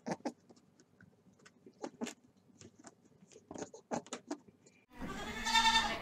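Scattered soft clicks and rustles, then about five seconds in a Nubian goat bleats loudly: one long, wavering call.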